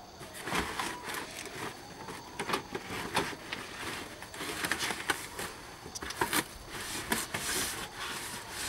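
Cardboard boxes and loose items being shifted around in a car's trunk: irregular knocks, scrapes and crinkly rustling.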